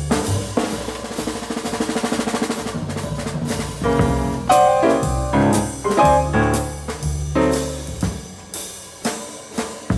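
Live jazz quartet: a grand piano plays a fast run of rapidly repeated notes, then loud, spaced block chords, over drums and bass.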